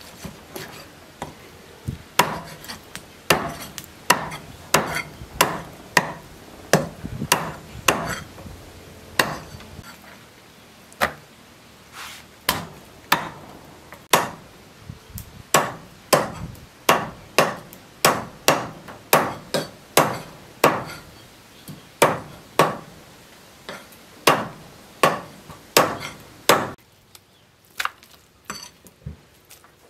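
Meat cleaver chopping a whole raw chicken into pieces on a wooden chopping block. It makes a steady run of sharp thwacks, roughly one a second, which stop a few seconds before the end.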